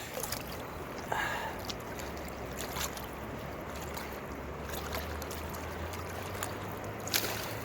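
Steady rush of flowing river water, with a few faint knocks and a low hum joining about two seconds in.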